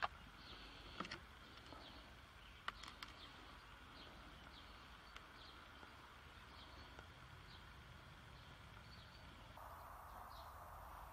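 Near silence: a faint outdoor background with small high chirps recurring every second or so, and a few sharp clicks in the first three seconds.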